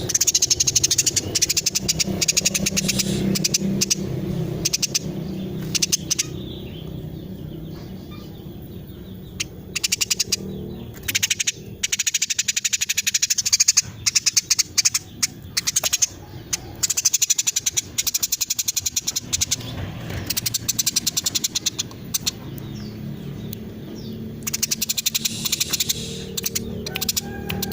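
Female Eurasian tree sparrow calling in rapid, dense runs of short chirps, broken by a few brief pauses.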